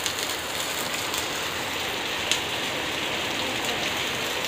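Heavy rain falling steadily, with an occasional sharper drip.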